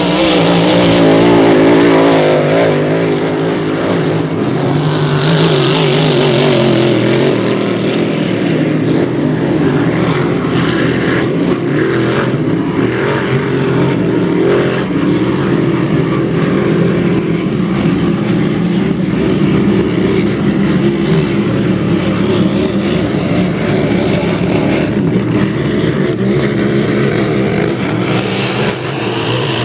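Several Grand Prix racing hydroplanes running at full throttle: a loud, steady engine drone, fullest in the first few seconds as the boats pass close, then duller as they run off down the course.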